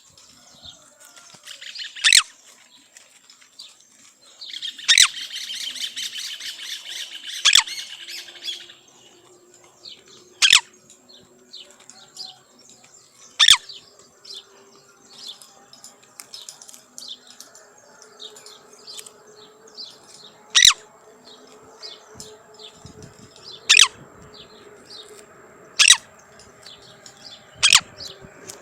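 A pet bird chirping: single sharp, loud chirps every two to three seconds, with a longer warbling burst about five seconds in.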